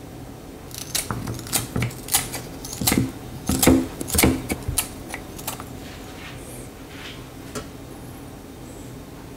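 Kitchen scissors snipping a small hairtail crosswise into chunks on a plastic cutting board: a quick run of crisp snips for about five seconds, then a few fainter ones.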